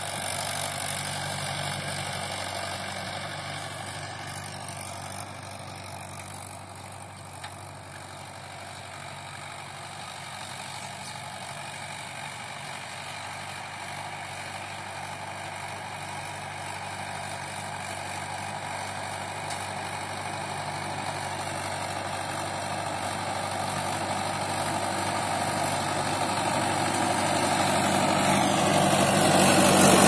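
Diesel tractor engine running steadily as it pulls a tillage implement across the field. It fades a little, then grows steadily louder as the tractor comes closer.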